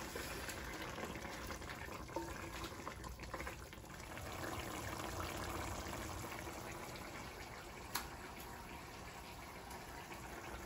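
Thick beef curry gravy bubbling as it simmers in a wide open uruli, the cooking liquid boiling down to reduce, with a couple of faint clicks.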